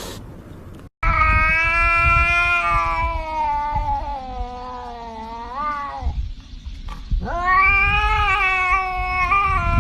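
A cat caterwauling in two long, drawn-out yowls. The first starts about a second in and wavers in pitch for about five seconds. The second starts after a short break and runs on past the end.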